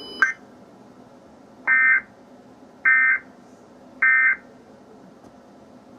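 Emergency Alert System broadcast sending three short buzzy data bursts, about a second apart: the SAME end-of-message code that closes a tornado warning.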